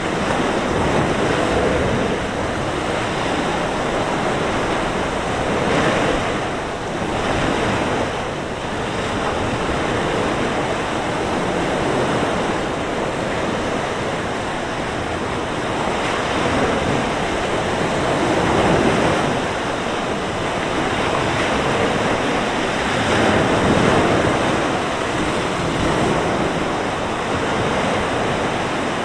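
Mediterranean surf: waves breaking and washing up the shore in a continuous rush that swells every few seconds, with wind blowing over it.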